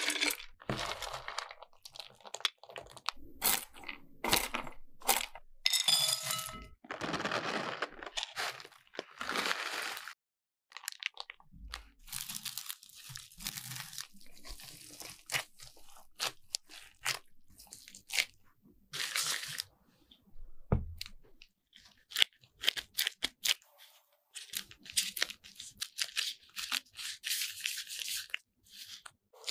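Mixed nuts and dried fruit rattling as they are poured from a plastic jar into a bowl. After a short pause, they are stirred and tossed by a gloved hand with sliced almonds in a glass bowl, giving many short crunches and rustles.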